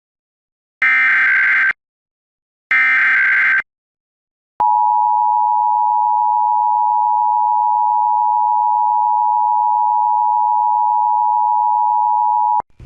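Emergency Alert System header: the last two of three short warbling SAME data bursts, about a second each with a second of silence between, then the EAS two-tone attention signal, a steady dual tone held about eight seconds and cut off abruptly. It marks the start of a required monthly test alert.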